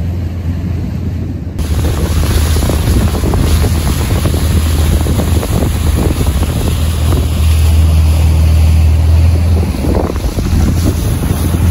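Motorboat engine running steadily at speed, with heavy wind buffeting the microphone and water rushing past the hull. The wind noise jumps up sharply about a second and a half in.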